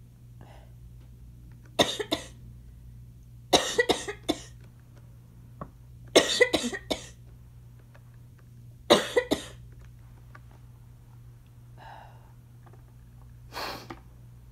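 A woman's asthma cough: four fits of coughing, each two to five coughs in quick succession, a few seconds apart, with fainter breaths between them and a shorter, breathy sound near the end.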